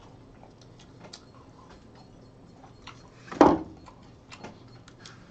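Close-miked chewing: a person eating with the mouth mostly closed, making soft scattered mouth clicks, with one louder short mouth sound about three and a half seconds in.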